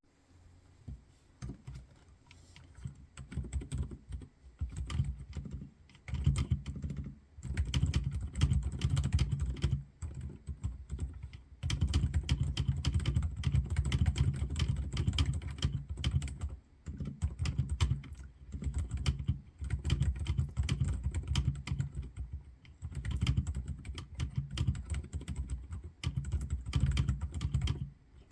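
Typing on a Redragon K643 mechanical keyboard with Outemu Silent Peach V3 silent linear switches in a hollow case. Soft, thocky keystrokes come in fast runs with brief pauses, sparse for the first few seconds and then steady.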